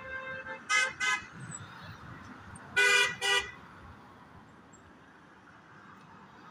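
Vehicle horn giving two quick double toots, the second pair about two seconds after the first and louder, over a steady hum of street traffic.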